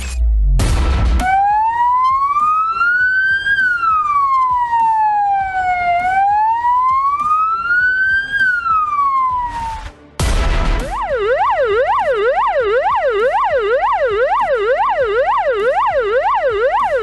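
Emergency vehicle siren: a slow wail rising and falling twice over about eight seconds, then, after a brief break about ten seconds in, a fast yelp sweeping up and down about twice a second.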